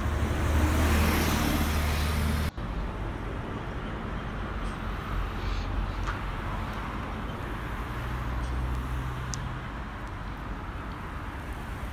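Road traffic on a bridge roadway: a vehicle's engine hums close by for the first couple of seconds, then the sound cuts off abruptly. Steadier, quieter traffic noise follows, with another engine hum swelling briefly near the end.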